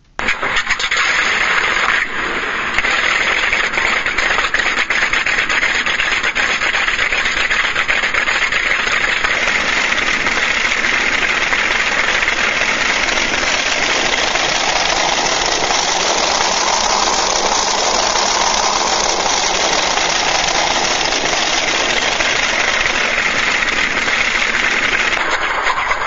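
Simulated WWII warplane engine sound played from an RC sound module through two small speakers: it comes in abruptly, dips briefly about two seconds in, then runs steadily.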